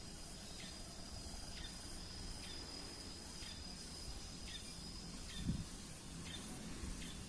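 Rural outdoor ambience: an insect's steady high whine that stops about five seconds in, and short chirps repeating about once a second, over a low rumbling background noise. One dull thump about five and a half seconds in.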